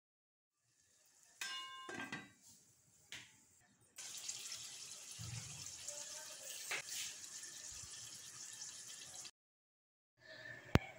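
Minced mutton and bitter gourd frying in oil in a steel pot: a steady sizzling hiss as the dish cooks down with the oil separating. A few brief scraping sounds from stirring come first, and there is a single sharp click near the end.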